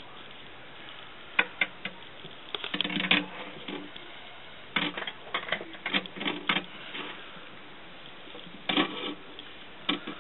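Handling noise: irregular clusters of light clicks and rustles in several bursts as a handheld camera brushes in among plant leaves, over a faint steady hiss.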